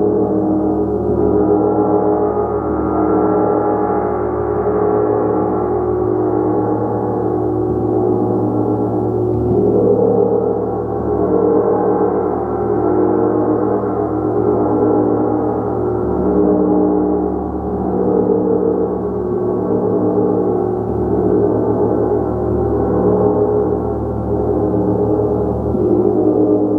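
Large hammered gong played continuously with padded mallets: a dense, sustained wash of many overlapping tones that swells and ebbs every couple of seconds.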